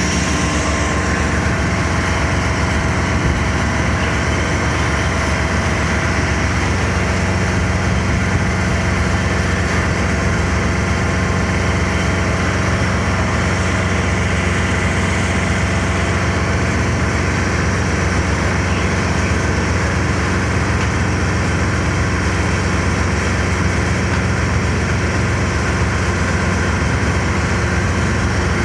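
A heavy engine idling steadily, a low even rumble that does not change throughout.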